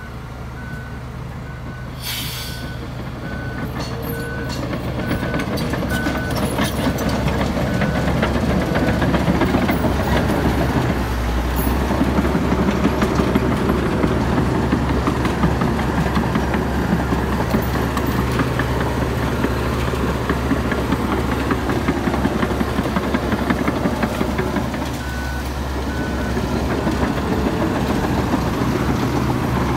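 Komatsu D61EX bulldozer's diesel engine working under load, growing louder over the first ten seconds. A reverse alarm beeps steadily at the start and again briefly near the end. There is a brief sharp noise about two seconds in.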